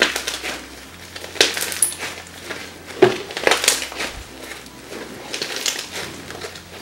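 Blue bead-studded slime being squeezed, kneaded and stretched by hands in disposable plastic gloves: a string of irregular squishing bursts, some seconds apart, as the slime is pressed and pulled.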